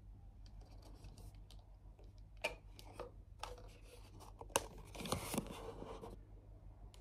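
Faint handling noise of a compact digital camera: a few sharp clicks as its flip-out screen is swung open and the body is turned over, then a brief stretch of scraping and rubbing about five seconds in.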